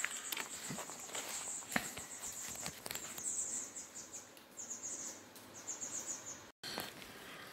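Bats squeaking in short trains of rapid high chirps, with footsteps and scattered clicks on the gravel floor of the disused railway tunnel.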